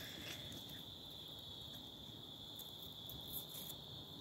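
Crickets trilling steadily in the background, faint, with a few light clicks in the second half.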